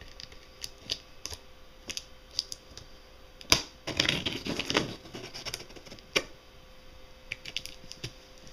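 A knife blade slitting packing tape on a cardboard box: scattered sharp ticks and scratches, with a loud click about three and a half seconds in, then about a second of scraping along the tape.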